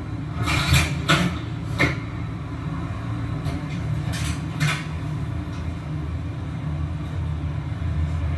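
Recorded Tokyo Metro Marunouchi Line train sound from a railway-karaoke track, played over the karaoke room's speakers: a steady low rumble with several short hisses in the first five seconds.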